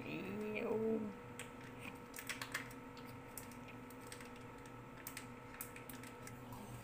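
Metal spoon clicking and scraping against a small stainless steel pot while noodles are mixed with sauce, in scattered light taps. It opens with a brief rising voice-like hum, the loudest sound.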